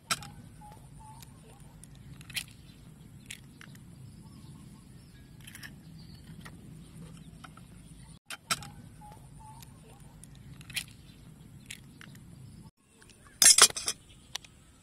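Duck eggs being tapped and cracked open over a hollowed-out watermelon: a few sharp shell taps spaced a few seconds apart, then a louder cluster of cracking as a shell is broken and pulled apart near the end, over a steady low outdoor hum.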